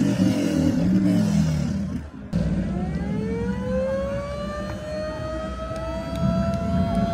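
Vehicle engine running with a low rumble. After a sudden break about two seconds in, a whine rises in pitch over a couple of seconds and then holds steady over the running engine.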